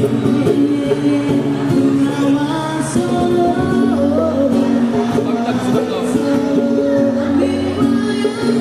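Live band music with singing: sustained chords and a melody line, played steadily.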